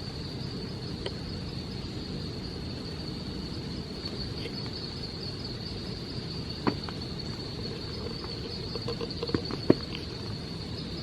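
A steady chorus of insects, one unbroken high-pitched buzz, over a constant low rushing noise. A few sharp taps come about two-thirds of the way in and again near the end.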